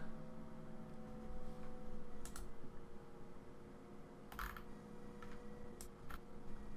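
A handful of faint, scattered clicks over a faint steady hum.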